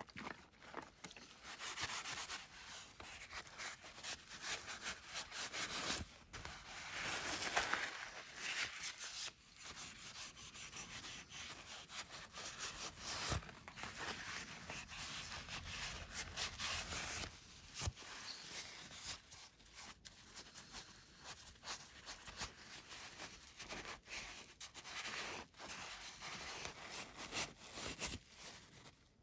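Paper towel rustling and rubbing over a carved black walnut handle as a finish from a tin is wiped on, in irregular scrubbing strokes with brief pauses.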